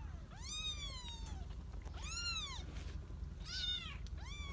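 Young kittens mewing: about four high-pitched cries in turn, each rising and then falling in pitch, the first one the longest.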